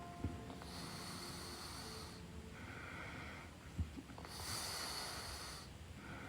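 A sleeping woman's noisy breathing, breaths in and out of about a second and a half each, alternating between a higher and a lower hiss. A brief knock about four seconds in.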